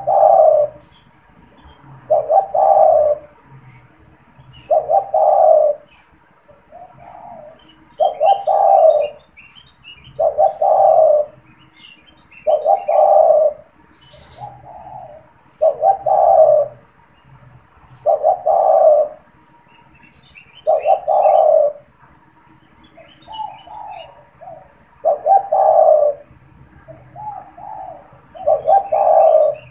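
Spotted dove (tekukur) cooing its song over and over, in its vigorous calling mode: one loud coo phrase about every two and a half seconds, with softer short coos in some of the gaps. Small birds chirp faintly in the background.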